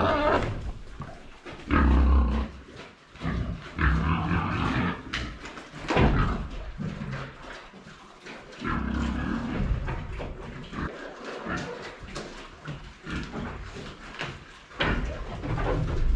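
Hungry pigs screaming in irregular bursts at feeding time, a sign they are excited for food rather than hurt.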